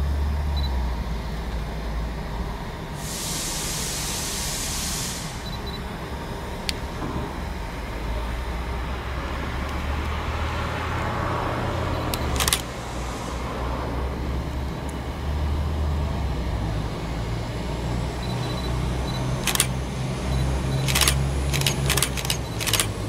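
Regio Shark class 844 diesel railcar approaching slowly, its engines running with a low steady drone. A hiss lasts about two seconds starting about three seconds in, and a run of sharp clicks comes near the end.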